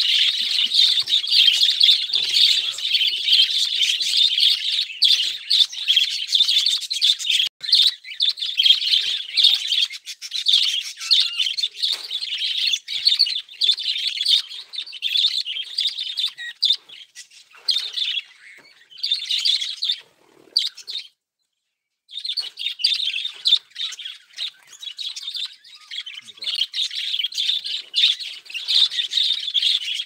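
A flock of budgerigars chattering and chirping continuously. The chatter dips and cuts out briefly about two-thirds of the way in, then resumes.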